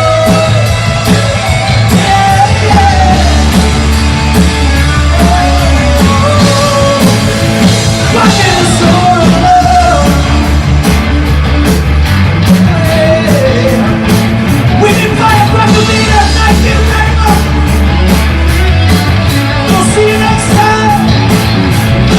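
A rock band playing loud and live, with a singer half-singing, half-shouting over a heavy bass and a steady drum beat.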